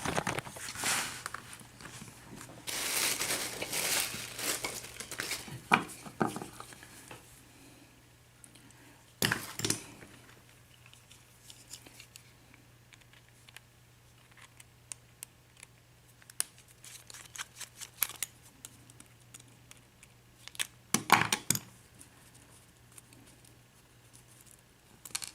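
Small brass padlock being taken apart by hand: scraping and rustling for the first few seconds, then scattered sharp metallic clicks and taps, with louder clusters about nine seconds in and again about twenty-one seconds in.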